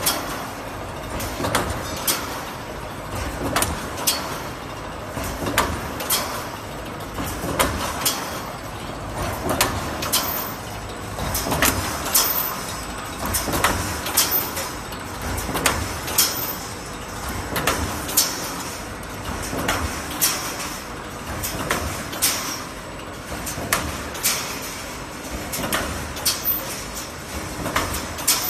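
Automatic wire mesh panel welding machine running through its weld cycle, with a cluster of sharp metallic clacks about every two seconds over steady machine noise.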